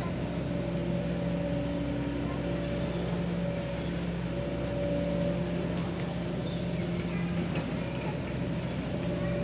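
Kobelco SK140 hydraulic excavator's diesel engine running steadily as it swings and lowers its arm and bucket.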